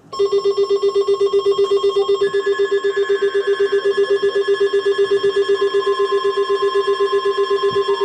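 Loud electronic alert tone starting abruptly and pulsing rapidly, about six or seven beats a second, with steady higher tones held over it, as played in an emergency weather alert broadcast.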